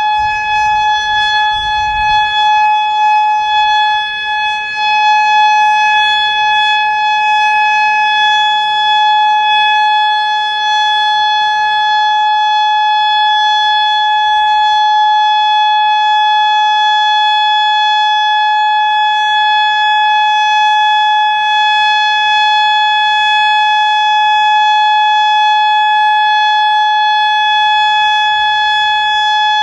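Federal Signal Modulator 4016 outdoor warning siren sounding the Alert signal: one steady, unwavering tone with strong overtones, held without any rise or fall in pitch.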